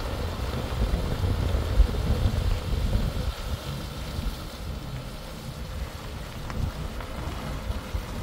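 Wind buffeting the microphone: an uneven low rumble that eases off a few seconds in.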